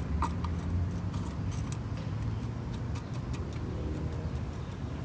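A steady low rumble with scattered light clicks and ticks.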